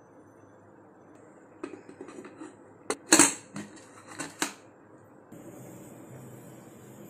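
Kitchen utensils knocking and clinking a handful of times, the loudest knock near the middle, followed by a faint steady hiss.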